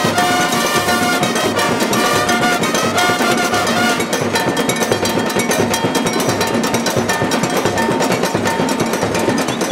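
Cuban comparsa band playing live: bass drums and barrel hand drums pound out a dense, driving rhythm while trumpets play a melody over it. The trumpet lines are clearest in the first few seconds, then drop back under the drumming.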